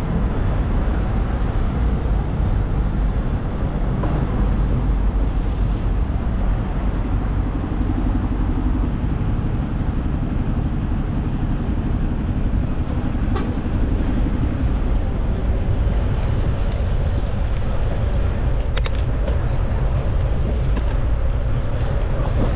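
Street traffic heard from a moving bicycle: a steady low rumble of road and wind noise. A faint engine hum runs through the middle, and there are a couple of sharp clicks.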